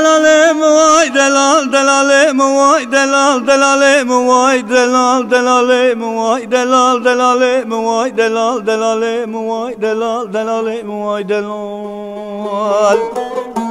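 Long-necked saz (bağlama) strummed in a steady quick rhythm, an ornamented Kurdish folk melody played over a ringing drone.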